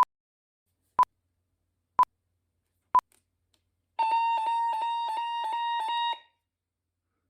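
Electronic beeps: a short, high pip once a second, four times, then about a second later a rapid alarm-style beeping lasting about two seconds.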